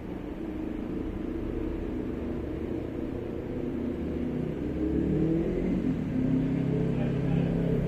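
Dark ambient background music: a low rumbling drone, with sustained tones gliding up and settling in about halfway through.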